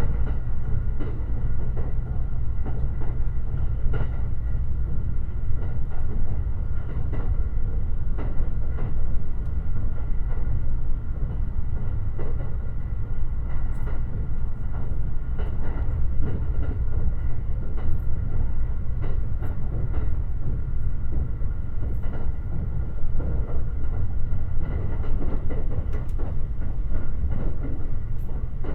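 Limited Express Shirasagi electric train running steadily at speed, heard from inside the carriage: a continuous low rumble of wheels on rail, scattered light clicks over the track and a faint steady high whine.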